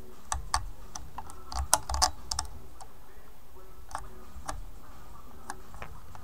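Light clicks and taps of fingers and a small tool handling the Floyd Rose tremolo bridge hardware while a D-Tuna is fitted: a quick cluster of clicks in the first couple of seconds, then a few single clicks.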